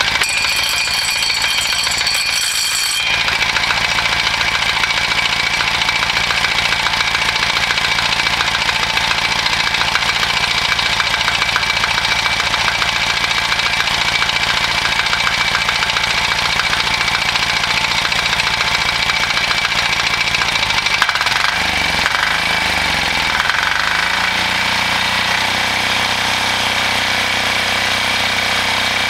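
Single-cylinder 296 cc diesel engine of the Yanmar L70 type running steadily just after a recoil start, with a rapid, even knocking of its firing strokes. About 21 seconds in its speed shifts and it settles to a new steady note.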